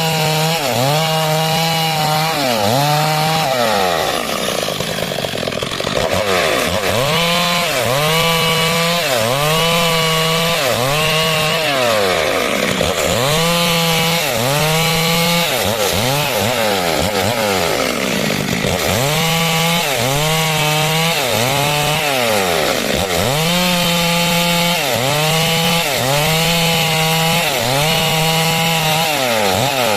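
Stihl MS 382 two-stroke chainsaw cutting lengthwise through wood to make planks. Its pitch rises and falls over and over, about once a second, as it works under load.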